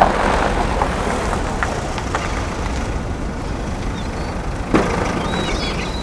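Taxi van running and pulling up slowly, a steady engine rumble with tyre noise on dirt, and a single thump near the end as a door opens.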